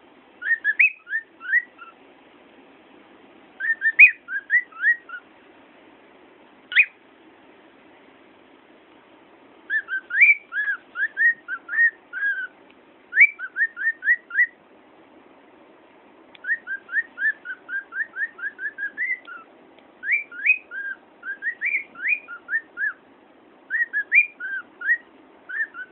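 Cockatiel singing: phrases of short, quick whistled notes, each a fast slide in pitch, several notes to a phrase with pauses of a few seconds between phrases.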